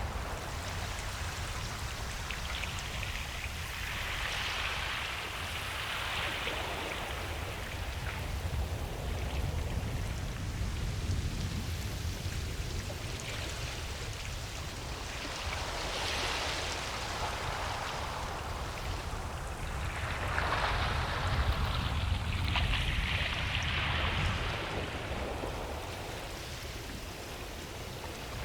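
Ocean waves breaking and washing up a beach, the hiss of the surf swelling and easing three times over a steady low rumble.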